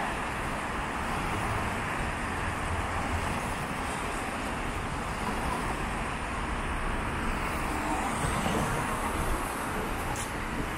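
City road traffic: cars driving past on a wet street, a steady rush of tyres and engines.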